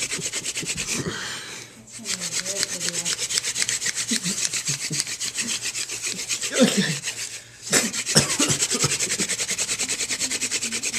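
Tandem hand drill: a spindle spun back and forth between the palms, rubbing rapidly and rhythmically in a wooden hearth board. There are brief breaks a little before two seconds in and again about seven and a half seconds in.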